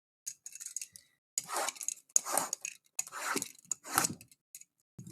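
Packaging of a trading-card box being torn and rustled open by hand: a few small clicks, then four rough tearing, crinkling strokes about a second apart.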